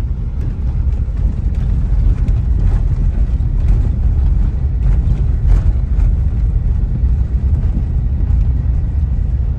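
Steady low rumble of a car driving on the road, road and engine noise with no clear changes.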